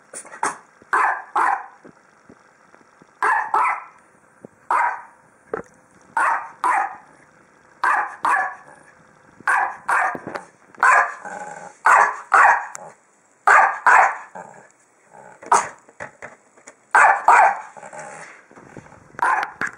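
Small dog barking over and over in short, sharp barks, often in quick pairs, about one or two a second. It is excited barking at a ball that it cannot reach.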